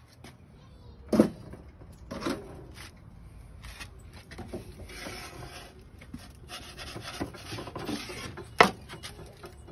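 Wooden pizza peel scraping and knocking against an Ooni pizza oven as a pizza is slid in: rasping scrapes through the middle and latter part, sharp knocks a little after a second in and just after two seconds, and the loudest knock near the end.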